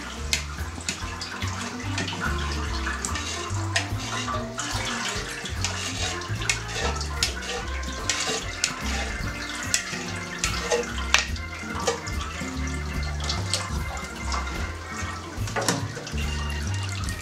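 Cheese curd being ladled from whey into a plastic cheese mould: whey splashing and trickling as it drains, with frequent sharp clicks of a plastic ladle against the mould. Background music plays underneath.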